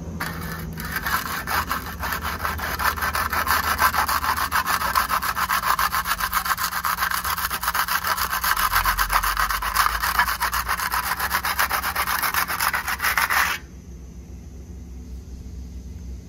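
Hand trowel shaving partly set cement repair mortar on a vertical patch: a loud, continuous scraping made of fast, short strokes that cuts off abruptly about thirteen seconds in. The mortar has been left to set a few minutes so it can be trimmed smooth.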